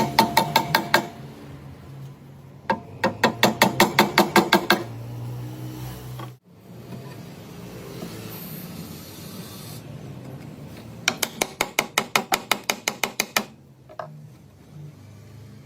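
A hand tool rasping on wood in quick, even strokes, about seven a second. The strokes come in three bursts: one at the very start, one about three seconds in lasting two seconds, and one about eleven seconds in lasting two and a half seconds. A low hum runs under them.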